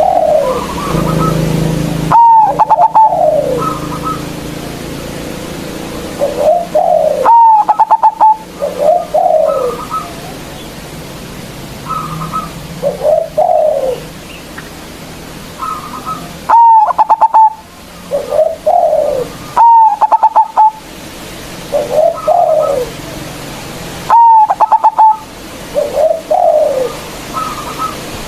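A local zebra dove (perkutut) cooing its song over and over. Each phrase opens with a high note broken by a quick rattle and then drops into a few lower, falling coos. It is the big-voiced call used as a lure (pancingan) to provoke rival doves.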